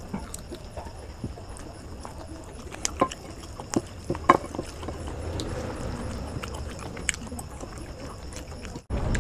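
Close-up eating sounds of someone biting and chewing a chicken leg piece and biryani: wet chewing with sharp lip-smacking clicks, several of them bunched a few seconds in and one more near the end.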